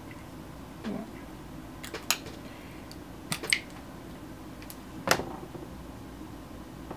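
A handful of short, sharp clicks and light knocks from a lipstick tube and other makeup being handled, over a steady faint hiss. The loudest knock comes about five seconds in.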